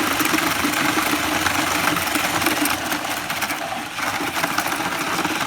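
Power mixer running steadily as it churns a watery batch of concrete, the motor holding an even pitch with a dense rattling texture and dipping briefly about four seconds in.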